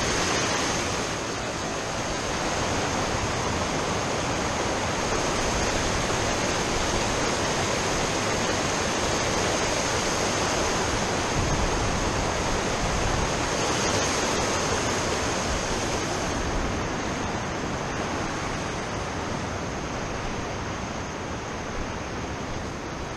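River water rushing over rocks and a low-water crossing: a steady, loud, even rush, with a thin steady high whine above it. It softens a little over the last few seconds.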